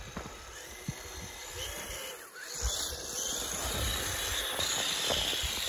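Traxxas TRX-4 RC crawler on Traxx snow tracks driving down a snow pile. Its electric motor and tracks make a hissing noise in the snow that gets louder about halfway through, over low irregular bumps.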